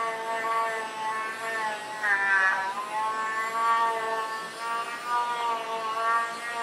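Handheld rotary tool running with a burnishing bit against a leather edge. The motor whines steadily, and its pitch sags and recovers as the bit is pressed on the leather.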